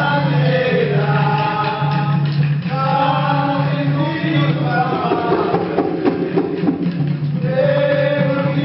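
Maculelê music: a group chanting a song in long held notes over steady atabaque hand-drumming.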